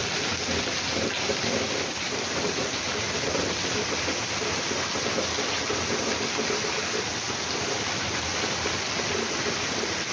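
Heavy rain downpour, steady: rain hitting the yard with water pouring off the roof edge and out of drain spouts and a PVC pipe, splashing onto the ground.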